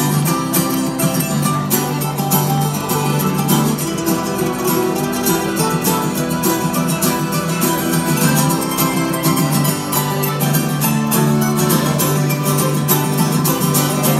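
Live instrumental break of a folk-rock song: a mandolin picking a solo over a button accordion, with a held low note underneath.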